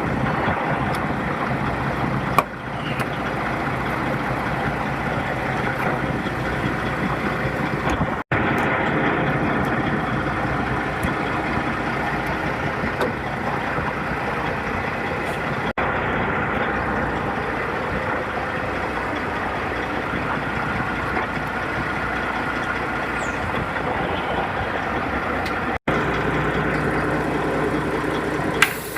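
Heavy diesel truck engine idling steadily, breaking off for an instant three times.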